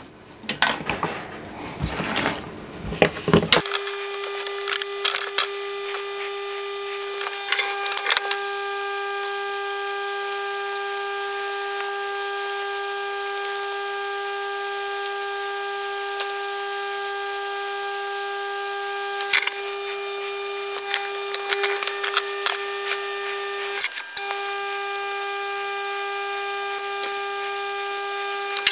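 A few seconds of parts being handled on a workbench, then an electric heat gun running steadily, a fan hum with a hiss of hot air, shrinking heat-shrink tubing. It cuts out for a moment near the end and comes straight back on.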